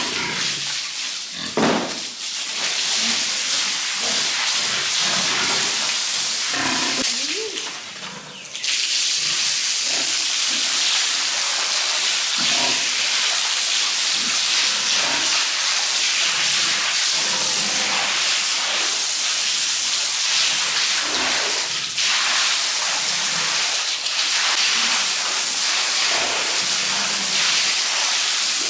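Water spraying from a hose in a pig pen, a steady hiss that breaks off briefly about eight seconds in, with pigs grunting now and then.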